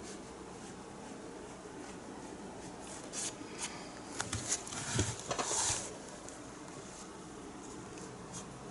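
Handling of painting materials on a work table: a few light clicks and taps, with a short scraping rustle a little past halfway, over faint room hiss.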